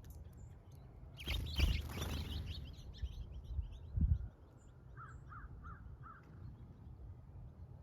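Birds calling: a dense burst of chirping calls about a second in, then four short, evenly spaced calls near the end, over a low rumble on the microphone with a heavy thump about four seconds in.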